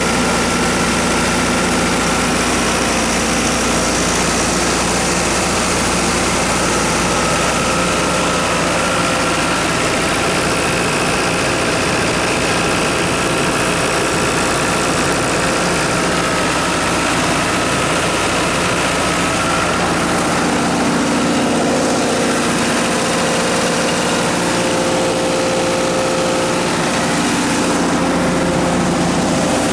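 Cummins 4BT3.9 four-cylinder diesel engine of a 60 kW generator set running steadily, its tone shifting about two-thirds of the way through.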